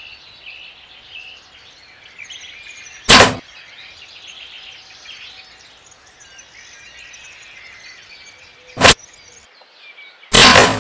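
Birds chirping in dry bush, broken by three loud, sudden hits: one about three seconds in, a brief one near nine seconds, and a longer one near the end as a bow-shot arrow strikes a warthog.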